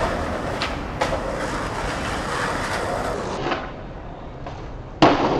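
Skateboard wheels rolling on concrete and stone, with a few sharp clacks of the board, and a loud crack near the end.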